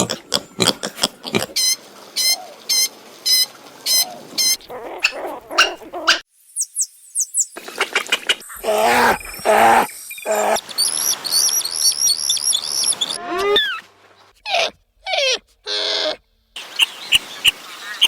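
A string of short animal sounds with abrupt breaks between them: rapid repeated bird chirps in the first few seconds, then a few longer pitched animal calls in the middle, then more chirping.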